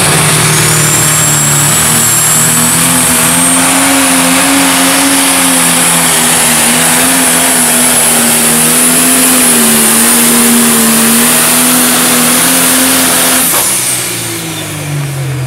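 Pro stock pulling tractor's turbocharged diesel engine running flat out under full load while dragging a weight-transfer sled, a high turbo whistle riding over the engine note. Near the end the engine note falls and the sound drops away as the tractor backs off at the end of the pull.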